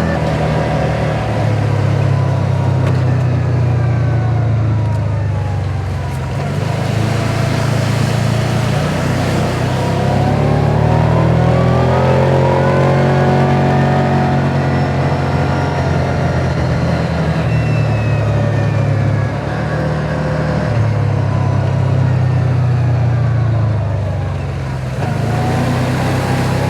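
Side-by-side UTV engine running steadily under way, with a whine that rises and falls as the speed changes.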